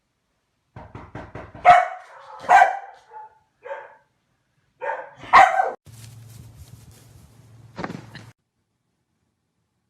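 A dog barking in short, separate barks, the loudest about two, two and a half and five and a half seconds in. These are followed by a low hum and one last bark about eight seconds in.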